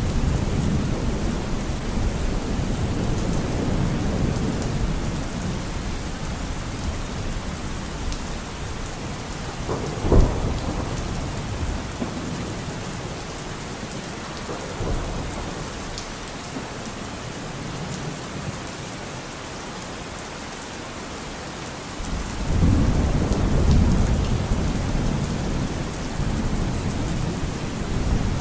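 Rain and thunderstorm ambience: steady rain with low rolling thunder, a sharp crack about ten seconds in, and a fresh rumble of thunder building near the end.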